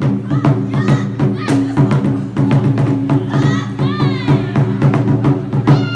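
Music with a fast, even drum and percussion beat over sustained low tones, with voices over it and a gliding voice-like pitch about halfway through.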